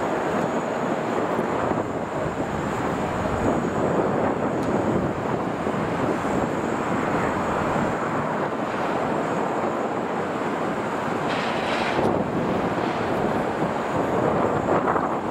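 Steady drone of a heavy mobile crane's diesel engine running under load as it lifts a truck's shipping container.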